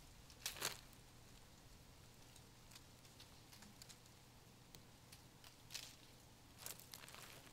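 A few footsteps crunching in dry fallen leaves: one about half a second in, then several more near the end, with near silence between them.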